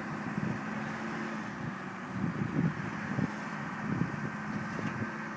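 A vehicle engine running steadily, with wind gusting on the microphone.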